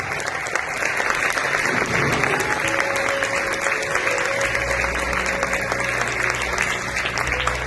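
Audience applauding, a dense steady clapping. About three seconds in, music comes in under the applause, and a low bass line joins it about a second and a half later.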